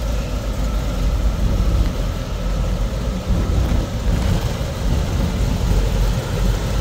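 Chevrolet Caprice engine and exhaust rumbling steadily as the car rolls slowly forward at low speed, with most of the sound a deep, low rumble.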